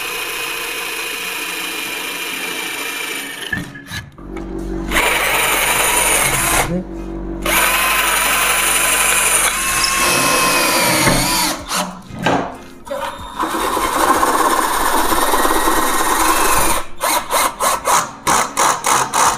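INGCO CDLI1211 12V cordless drill running in several separate stretches, each with a steady whine, with short breaks between. Near the end it cuts in and out in a quick run of short bursts.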